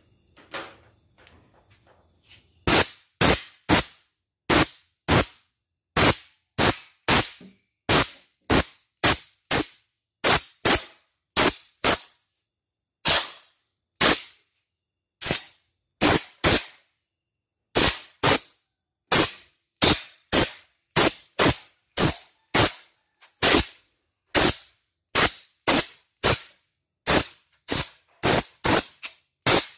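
Compressed-air blow gun fired in many short blasts, blowing built-up dirt out of the opened embroidery machine's mechanism. The blasts start about two and a half seconds in, come roughly one or two a second, and come closer together near the end.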